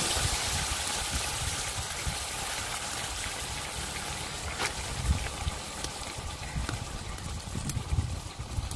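Hot oil sizzling in a karahi as pieces of raw beef are dropped onto browned garlic and ginger: a steady hiss that eases slowly as the meat starts to fry.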